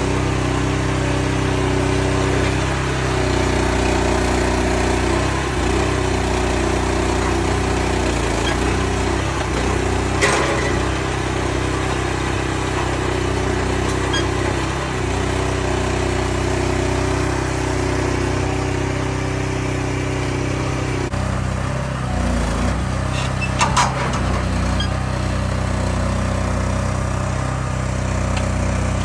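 An engine runs steadily, driving the hydraulics of a trailer-mounted log loader, its note shifting slightly as the grapple works. There is a sharp knock about ten seconds in and a few more around twenty-four seconds, as the grapple and logs are handled.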